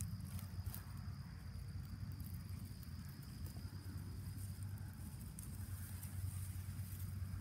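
Outdoor ambience in tall grass: a steady high-pitched insect trill over a low, steady rumble.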